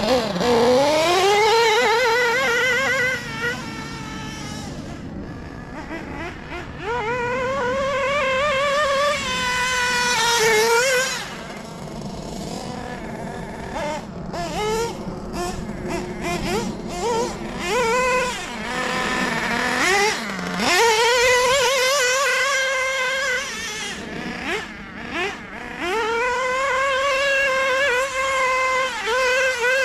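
LRP .32 (5.2 cc) two-stroke nitro engine in a 1/8-scale Serpent Cobra SR8X buggy running at full throttle in long pulls. Its high-pitched whine climbs quickly and holds for a few seconds, three times, with quick throttle blips and lower running between the pulls.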